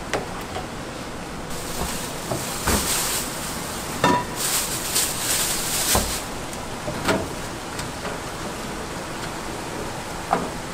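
Metal trays and pans clanking and knocking on a stainless steel stall counter as food is set out, over a steady hiss. A brighter, louder rustling hiss comes about four seconds in.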